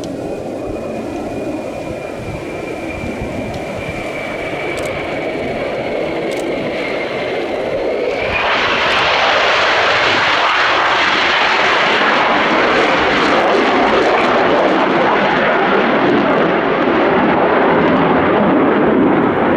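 Lockheed Martin F-35A Lightning II's single Pratt & Whitney F135 jet engine on approach: a high turbine whine over a steady roar, the whine slowly falling in pitch, then about eight seconds in the jet roar suddenly swells much louder and stays loud as the aircraft comes close.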